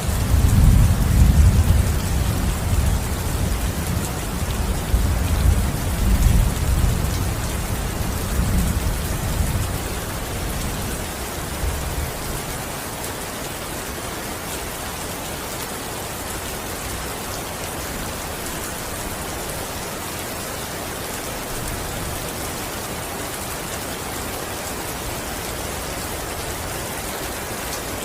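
Steady rain falling, with a roll of thunder that starts suddenly and rumbles deep and low for about ten seconds before dying away, leaving only the rain.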